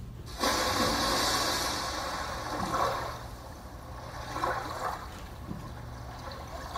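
Splash sound effect of a body going into water, played over the theatre's sound system. It starts suddenly about half a second in and fades over two to three seconds, followed by a few short, faint vocal sounds.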